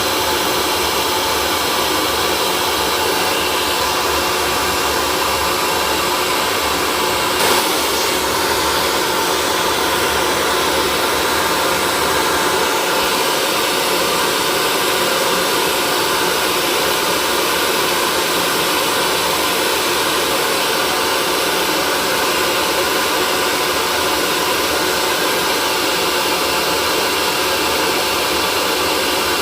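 Hair dryer blowing continuously, a steady rush of air over a faint even motor whine. One brief click about seven seconds in.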